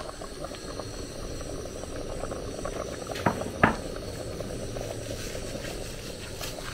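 Pot of soup cooking on the stove: a steady hiss with light crackling bubbles, and two sharp knocks close together about halfway through.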